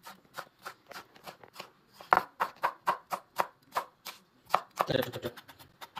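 Kitchen knife chopping on a wooden cutting board, dicing tomato and then slicing green chili: a steady run of sharp taps, about four a second, quickening near the end.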